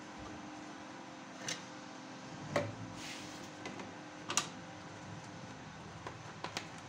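Scattered light clicks and taps of hands handling parts in a car's engine bay, about eight in all, over a faint steady hum, with a brief hiss near the middle.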